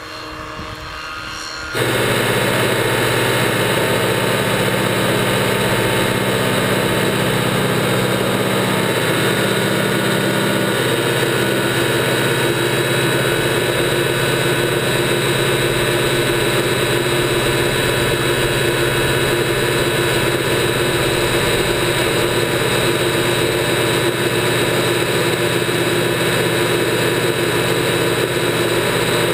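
Radio-controlled quarter-scale Ecureuil helicopter in flight, heard faintly and growing louder. Then, about two seconds in, the sound cuts to a much louder steady drone of its drive and main rotor with several held tones, heard from a camera on board inside the cabin.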